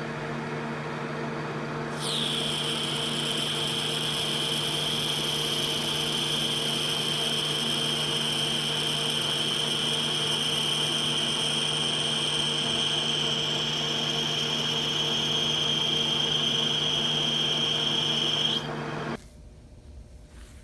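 Machine tool running steadily while cutting a Delrin part, probably parting it off. About two seconds in, a high, steady whine from the cut sets in with a quick drop in pitch, and it holds until near the end. Then the cut and the machine stop.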